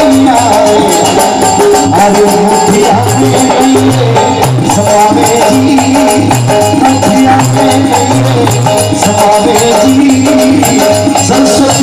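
Instrumental interlude of live Rajasthani bhajan music: a held melody line over a steady bass pulse and fast, jingling hand percussion, with no singing.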